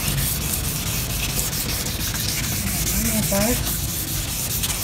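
Hand wet-sanding of a plastic car headlight lens with 1500-grit sandpaper on a pad: a steady back-and-forth rasp of paper on the lens. The sanding is taking off the yellowed, oxidised surface layer.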